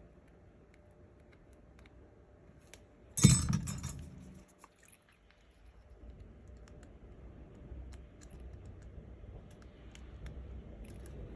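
Light ticks and clicks of small tools at a repair bench, with one loud clatter of a hard object being set down about three seconds in that rings briefly.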